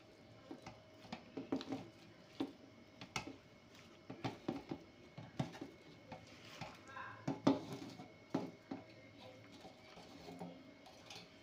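Light, irregular taps and clinks of fingers and watermelon pieces on a stainless steel plate as the pieces are picked off and dropped into a mixer-grinder jar.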